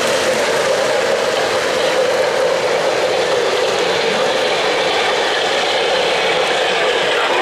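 Continuous rattling and whirring of O-gauge model trains running on three-rail track, mixed with the electric whir of slot cars racing on the adjoining track. The lower rumble fades after about five seconds.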